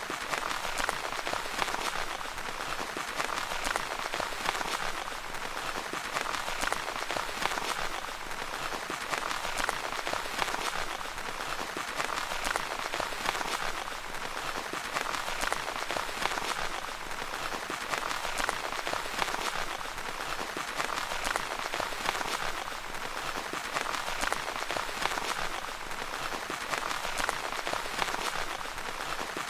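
Steady rain pattering on a tent, a dense even patter of fine drops.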